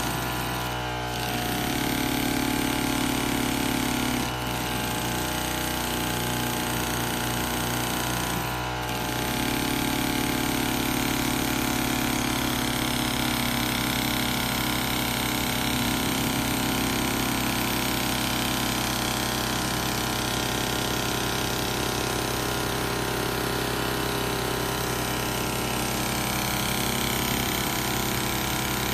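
Miniature brass two-cylinder compound steam engine running fast with an even, rapid chuffing rhythm. The sound briefly dips three times in the first nine seconds, then runs steadily.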